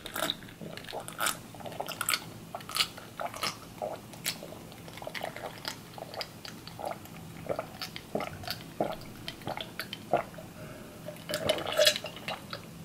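A man gulping ice water from a glass, swallowing in a run of short gulps about one to two a second, with a louder noise near the end.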